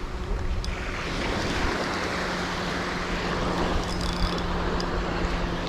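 Surf washing on the beach with wind buffeting the microphone; from about a second and a half in, a steady low hum runs underneath.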